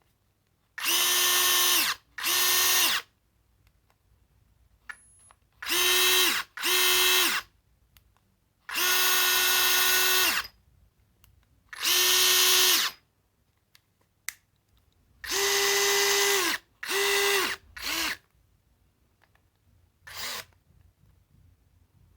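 Parkside Me PMBSA 4 A1 cordless drill's small brushless motor and gearbox whining at a steady pitch in about ten short trigger pulls, each run lasting half a second to two seconds with a quick spin-up and spin-down. The last two pulls are brief.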